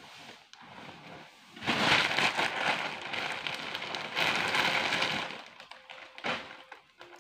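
Plastic poly mailer bag crinkling and rustling loudly as it is handled and opened, for about four seconds, then fading as a garment is pulled out of it.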